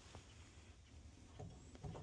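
Faint scattered clicks and light knocks of metal tools and pipe fittings being handled, a few of them close together in the second half, over a low background hum.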